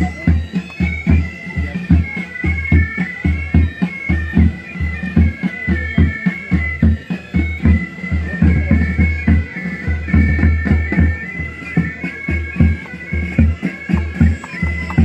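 Military pipe band playing a marching tune: bagpipes carrying a melody over their steady drone, with snare and bass drums beating a regular march rhythm.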